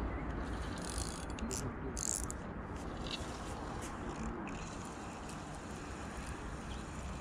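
Fishing reel being cranked to bring in a hooked fish: a light mechanical clicking, busiest in the first half, over faint steady outdoor background noise.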